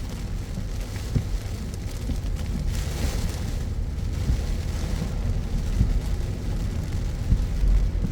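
A car driving on rain-soaked city roads: a steady low road and engine rumble under the hiss of rain and wet tyres, with a brief swell of hiss about three seconds in.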